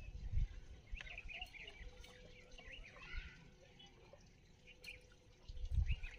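Small birds chirping in short, quick calls, thickest in the first half, with a few low dull thumps at the very start and just before the end.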